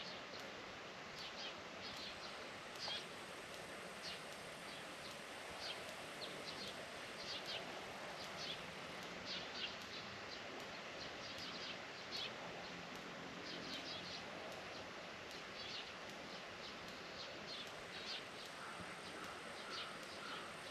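Small birds chirping with short, sharp, high notes, often several in quick succession, over a steady outdoor hiss.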